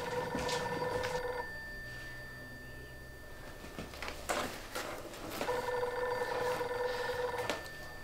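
A telephone ringing in a repeating cadence: a trilling ring that stops about a second and a half in, then a second ring of about two seconds starting about five and a half seconds in. A few sharp knocks fall between the rings.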